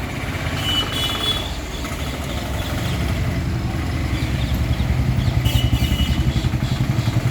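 A motor vehicle engine runs close by with a low, even throb that grows louder through the second half.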